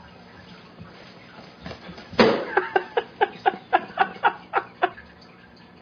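A person laughing: a sudden outburst about two seconds in, then a run of about ten quick "ha" pulses, about four a second, that stops near the end.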